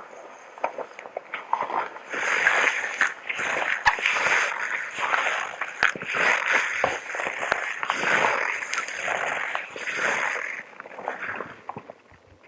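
Close-miked rustling and crinkling of a plastic hazmat suit's material, louder from about two seconds in and dying away near the end, with three sharp clicks in the middle.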